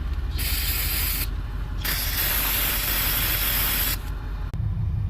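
Compressed-air blow gun hissing in two blasts, a short one and then a longer one of about two seconds, blowing dirt off the valve where the pilot head was removed. A low steady rumble continues underneath.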